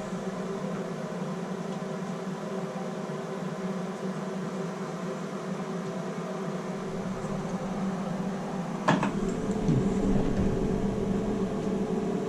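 Plumbing torch flame running steadily while heating the brass valve body for soldering, with a single sharp knock about nine seconds in.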